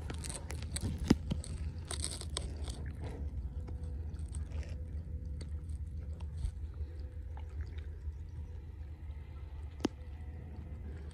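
A hand digging into a crab burrow in wet mud underwater: scattered crunching and scraping clicks over a steady low rumble, with one sharp click about a second in and another near the end.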